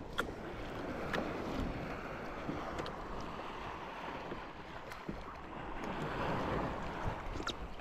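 Wind and small waves lapping around a fishing kayak on open sea: a steady rushing that swells and eases, with a few light clicks and taps.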